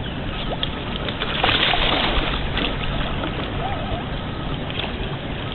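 Water splashing and sloshing, with a louder splash about one and a half seconds in.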